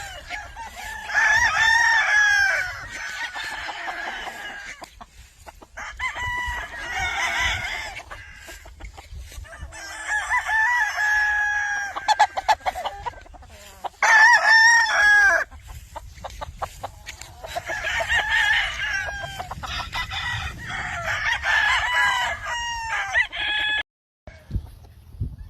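Gamecocks of a McRae gamefowl line crowing one after another, about six crows a few seconds apart, with clucking in between.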